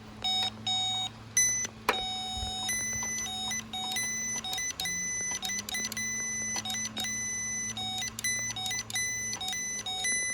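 Power Probe circuit tester beeping in irregular on-off bursts at two pitches, as its contact with the relay circuit makes and breaks, over a low steady hum.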